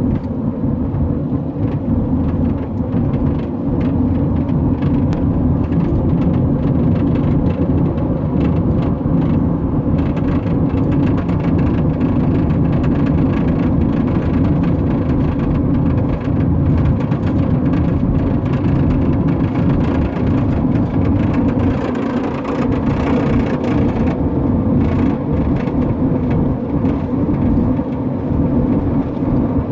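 2006 Honda Odyssey minivan driving at highway speed: steady, loud road and drivetrain noise. It is recorded to capture a clunking noise that the owner hears at highway speed and cannot explain.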